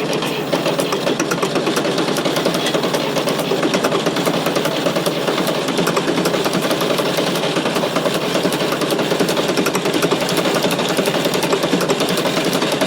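Fordson Super Major's 3.6-litre four-cylinder diesel engine running at a steady idle.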